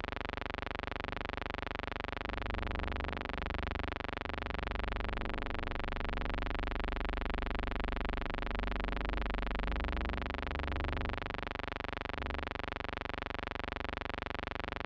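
A steady electrical buzzing hum with many overtones, with a low rumble swelling underneath through the middle stretch. There is no sound of the deck scene itself.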